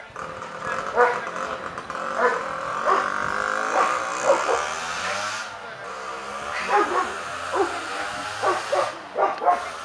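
Kuvasz barking repeatedly, about a dozen short barks at irregular intervals from about a second in.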